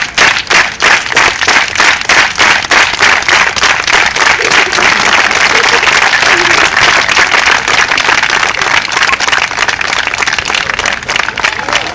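Crowd clapping in unison, about three or four claps a second at first, speeding up until the claps run together into a continuous patter of applause.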